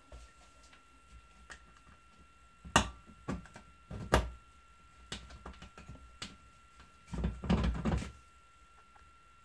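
IKEA TUPPLUR roller blind tube and its plastic end cap knocking and clicking against the mounting bracket as they are pushed into place. A sharp knock about three seconds in, a few more knocks and light ticks after it, then a quick run of rattling knocks lasting about a second near the end.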